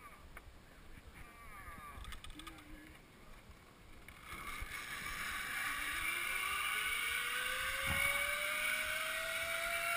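Zip line trolley running along a long steel cable after a rider sets off about four seconds in: a steady hiss joined by a whine that rises slowly in pitch as the trolley gathers speed.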